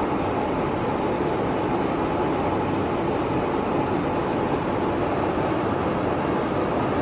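Steady, unbroken engine and airflow noise inside a KC-135 Stratotanker in flight.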